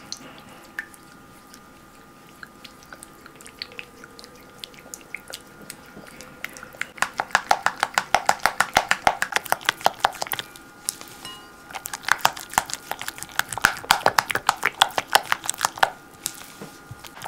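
Silicone spatula stirring thick melted chocolate and cream in a glass bowl, mixing it into a smooth ganache. It makes quick wet slapping clicks, several a second, in two fast runs of about four seconds each, with lighter scraping strokes before them. A faint steady hum sits underneath.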